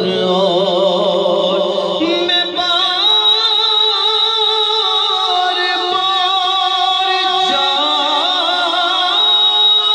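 Male voices singing a naat, drawing out long, wavering held notes without words. A thin, steady high-pitched tone runs underneath.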